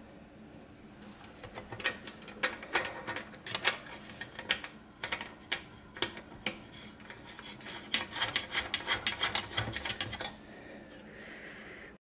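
Hands working the wiring inside an electric melting furnace's control box: a run of irregular small clicks and taps from handling wires and plastic connectors, coming thickest in a quick flurry near the end.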